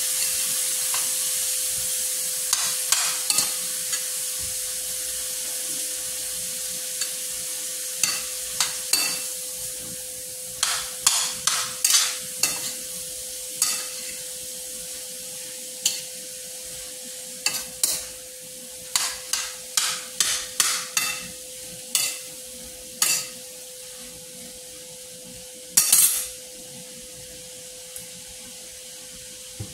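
Sliced bitter melon with tomato and onion sizzling in a stainless steel skillet while a metal spoon stirs it, clinking and scraping against the pan in irregular bunches of sharp clicks. The sizzle slowly dies down, and the loudest clinks come twice in quick succession near the end.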